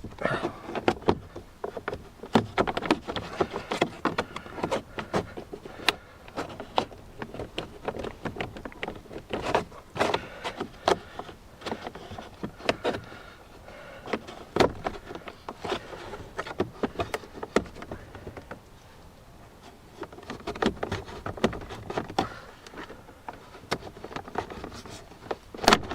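Plastic window-switch panel in a car door being prised out with a tool: irregular sharp clicks, creaks and scraping of plastic clips and trim, with a quieter stretch a little after halfway.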